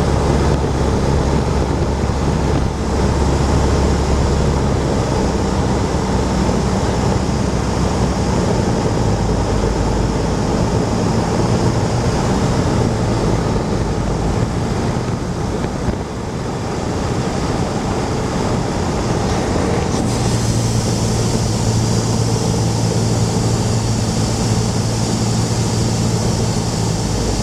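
Cessna 172's piston engine and propeller droning steadily under a rush of wind noise. The engine note shifts about eight seconds in, and steps up about twenty seconds in as the rushing noise brightens.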